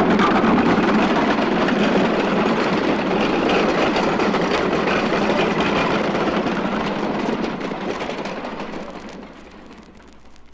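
A steady, dense background din that fades out over the last couple of seconds.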